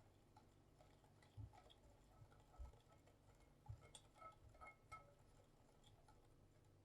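Faint scattered clicks and taps of a utensil against a mixing bowl while batter is mixed, with a few brief ringing ticks in a cluster just past the middle.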